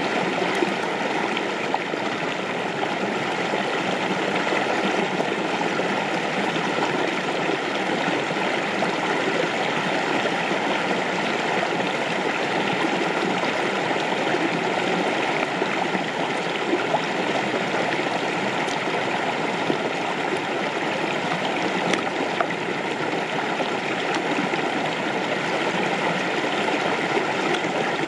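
Steady rush of flowing water, with a few faint ticks on top.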